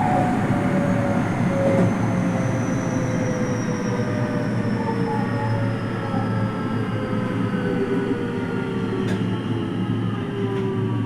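223 series electric train heard from on board, its traction motors whining in several tones that fall slowly in pitch as the train slows, over a steady rumble of wheels on rail.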